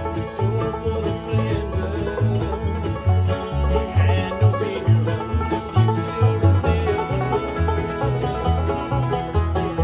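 A band playing an instrumental passage of country/bluegrass-style music. Plucked strings ring over a bass line that steps about twice a second.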